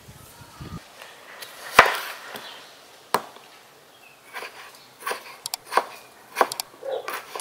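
Knife slicing tomatoes on a wooden cutting board: sharp knocks of the blade hitting the board, one loud knock about two seconds in, then a run of steady cuts at about two a second in the second half.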